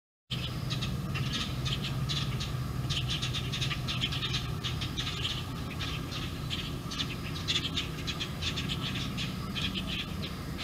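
Many small birds chirping rapidly in quick, high, overlapping calls, with a steady low hum underneath.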